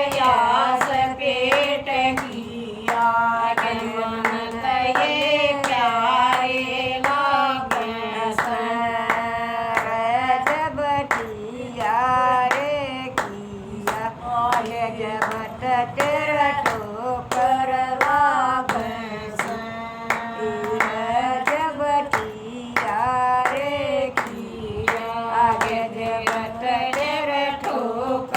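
A woman singing a Haryanvi devotional bhajan with wavering, ornamented notes, kept in time by regular hand claps.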